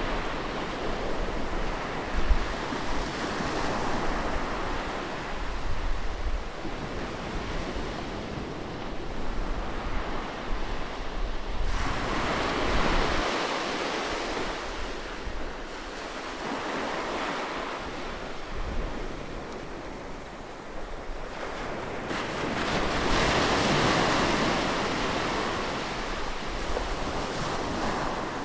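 Ocean surf: waves breaking and washing up the shore, the wash swelling and easing every few seconds, with a bigger surge near the end.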